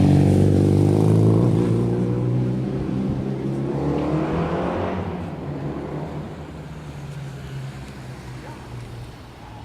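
Equus Throwback's supercharged V8 engine running as the car drives off. It is loudest at first and fades steadily, with a brief rise in revs about four seconds in.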